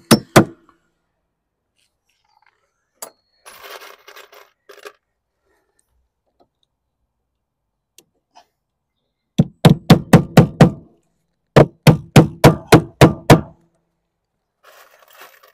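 Hammer driving nails through lead sheet into a plywood dormer cheek: two blows at the start, then two quick runs of about seven and nine blows, some five a second, in the second half. A faint rustle of handling about four seconds in.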